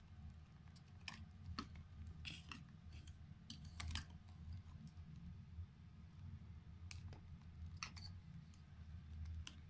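Light, irregular clicks and rattles of hands handling plastic wiring connectors and cables on a motorcycle, over a low rumble.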